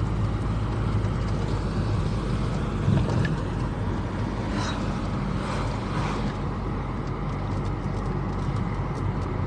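Car engine and road noise heard while driving: a steady low hum with an even rush.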